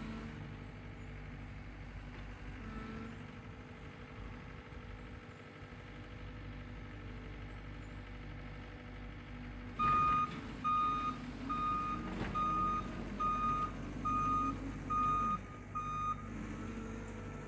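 Engine of the machine pulling the power rake running steadily; a little past halfway a reversing alarm starts beeping, a string of even beeps for about six seconds as the machine backs up, then stops.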